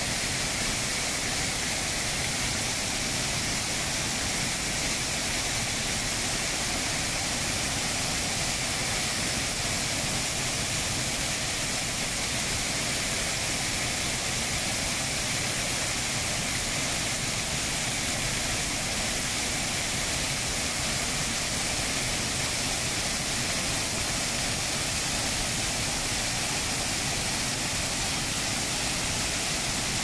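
Keila waterfall's broad curtain of water rushing steadily over its ledge into the pool below, a constant hissing roar of water that does not change.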